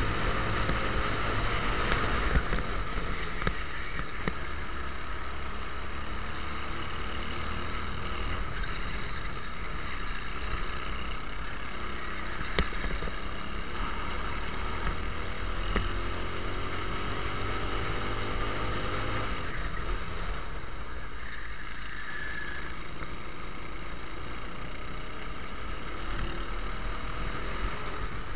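Racing kart engine heard from on board at race pace, running continuously. Its pitch rises again and again as it accelerates out of the corners.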